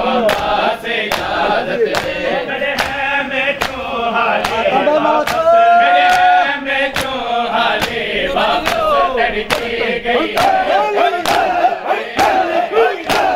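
Crowd of men chanting a mourning chant together over the steady beat of bare-handed chest-beating (matam), about two hard slaps a second. Near the middle, one voice holds a long note.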